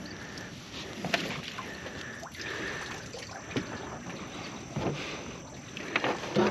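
Scattered knocks and clunks in an aluminium jon boat as someone moves about at its console, over a steady outdoor hiss; the loudest knocks come near the end.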